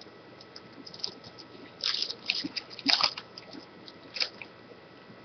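Foil wrapper of a Topps Prime football card pack being torn open and crinkled, in a few short crinkly bursts, the loudest about three seconds in.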